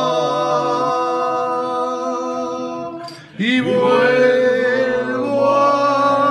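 Men singing the drawn-out closing notes of a Spanish toasting song. One long held note fades about three seconds in, then after a brief breath a new note slides up and is held.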